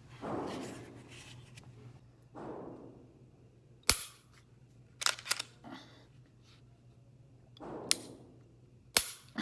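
Glock 43X pistol being handled: sharp mechanical clicks, loudest about four seconds in, a quick cluster about five seconds in, and two more near the end, with softer rubbing and sliding sounds between.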